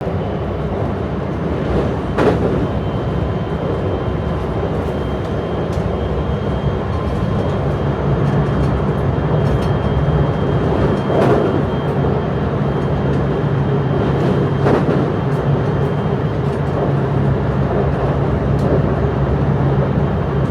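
Electric commuter train running, heard from inside the carriage: a steady rumble of wheels on track with a low hum that grows a little louder partway through, and a few knocks from the rails.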